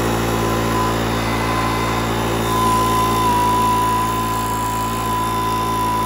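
Makita 26cc four-stroke handheld leaf blower running at a steady speed, its engine note under a steady high whine.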